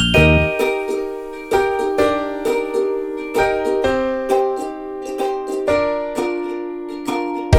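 Cheerful background music of plucked notes, likely ukulele, each note sharp at the start and fading quickly, several notes a second.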